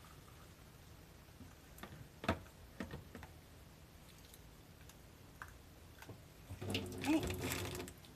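Hot water poured in a thin stream from a kettle into mugs of grated daikon and ginger, faint, with a few small splashes. Near the end, a louder clatter with some ringing as the kettle is set down on the stainless-steel counter and the mugs are handled.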